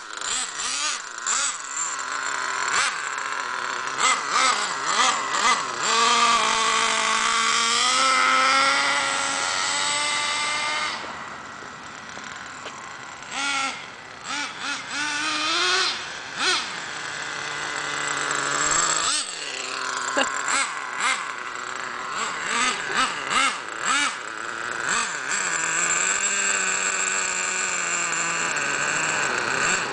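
Traxxas Jato 3.3 RC truck's TRX 3.3 two-stroke nitro engine revving up and down as it is driven fast, its pitch rising and falling with the throttle. It fades for a few seconds near the middle as the truck runs off into the distance, then comes back louder.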